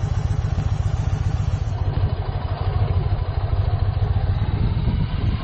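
Yamaha XV1900 Midnight Star's big air-cooled V-twin engine running steadily with a fast, even pulse.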